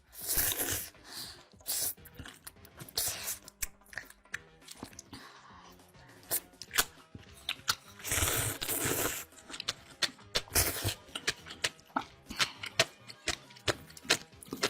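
Close-miked eating: loud crunchy bites and chewing of crisp food, with long crackling crunches at the start, around the middle and again shortly after, and many short crisp clicks between them.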